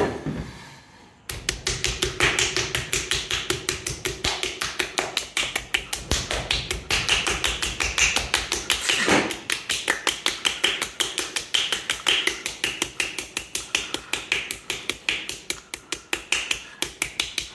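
Bare hands slapping a lump of soft terra cotta clay as it turns on a potter's wheel, in a fast, even run of strikes several a second that starts about a second in. This is dry centring: pounding the clay into the middle without water.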